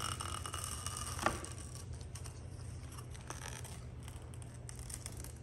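Protective plastic film crackling as it is peeled off a long aluminium sheet-metal part, with one sharp snap about a second in, over a steady low hum.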